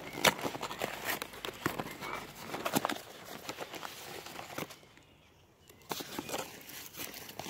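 Cardboard box and packing tape torn open by hand, then paper-towel packing crinkling as it is pulled out; a short lull comes about two-thirds of the way through.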